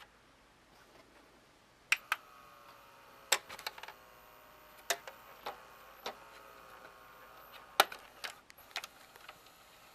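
Tape-loading mechanism of a jammed Magnavox VCR clicking: irregular sharp mechanical clicks, some in quick pairs, over a faint steady whine.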